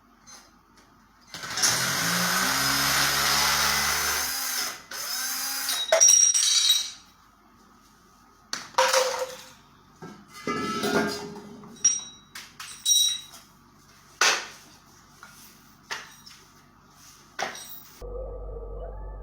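Hand and power tool work on bathroom fixtures: a few seconds of loud grinding or drilling noise, then a series of separate knocks, scrapes and clatters. Music comes in near the end.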